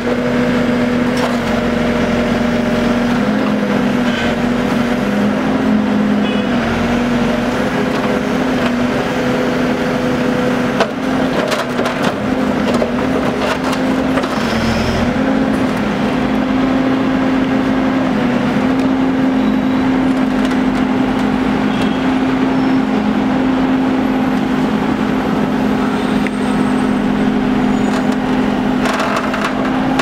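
Hidromek backhoe loader's diesel engine running steadily under load while its bucket digs a trench, with scattered scraping and cracking of soil and broken asphalt.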